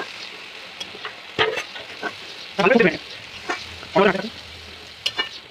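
Thick kalai dal with fish heads bubbling and sizzling in a metal kadai as it is stirred with a long metal spoon, with a few clicks of the spoon against the pan. Two short, louder pitched sounds come about a second and a half apart near the middle.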